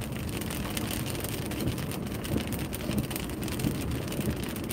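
Steady road and engine noise inside a moving car's cabin, with light rain pattering on the windshield.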